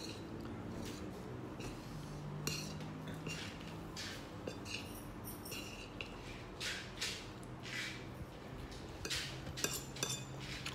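Cutlery clinking and scraping against a plate as someone eats, in irregular light taps about one or two a second, over a faint steady low hum.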